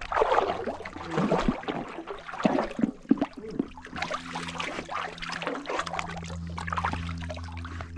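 Water sloshing and splashing in uneven surges around a dog wading through a shallow rock pool, heard close up from a camera on its back.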